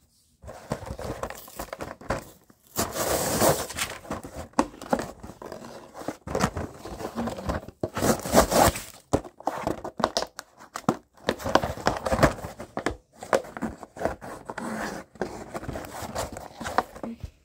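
Cardboard-backed plastic blister packaging being handled, crinkled and torn open in irregular bursts, with a few louder rips.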